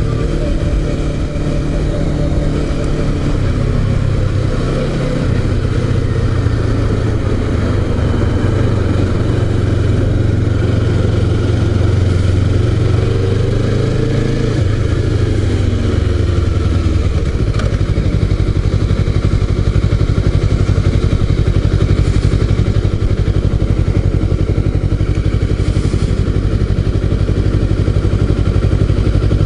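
Honda CBR250RR's 250 cc parallel-twin engine through an SC-Project aftermarket exhaust, heard from on the bike while riding. Its pitch rises and falls with throttle and gear changes in the first half, then settles into lower, even running from about halfway.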